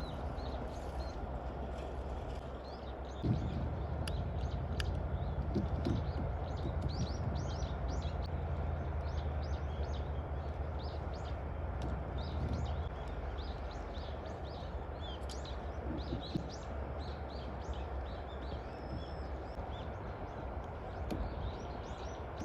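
Small birds chirping over a steady low rumble of outdoor background noise, with a few soft knocks about three, six and sixteen seconds in.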